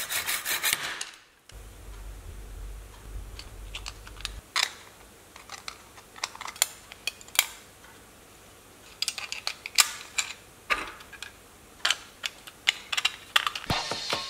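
A hacksaw cutting in quick, even strokes for about the first second. It is followed by scattered sharp clicks and taps of 3D-printed PLA trigger parts, springs and screws being handled and snapped together. Music comes in near the end.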